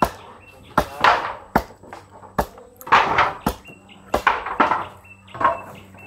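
Hammering on wooden boards: sharp, irregular knocks about one or two a second, some with a short ringing after the blow.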